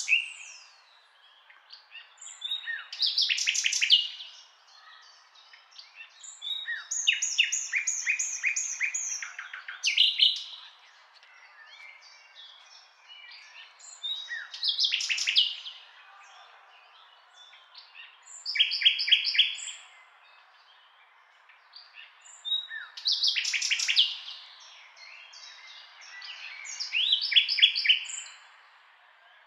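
Songbird singing: short phrases of quick, repeated chirps and trills, high in pitch, coming about every four seconds with brief pauses between.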